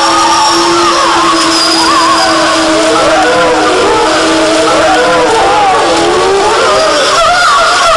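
A pack of wolves howling in chorus: many howls overlapping and gliding up and down in pitch, with short wavering yips among them. One long, low howl holds steady through the first half.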